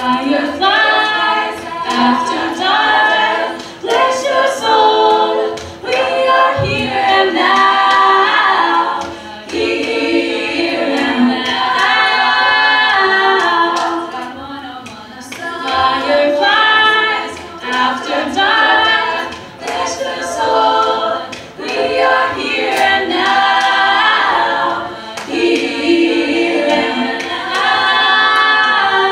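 Women's a cappella group singing: a lead voice on a handheld microphone over sustained backing harmonies, in phrases with brief dips between them.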